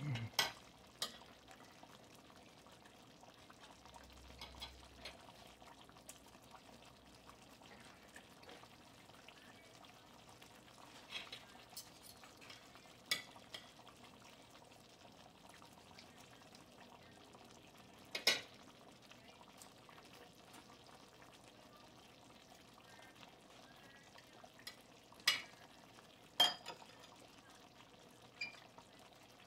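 Metal fork and spoon clinking and scraping on a ceramic plate while food is served: a handful of sharp, scattered clicks, the loudest about two-thirds of the way in and near the end. Under them, a faint steady simmer from the steaming pot of chicken adobo.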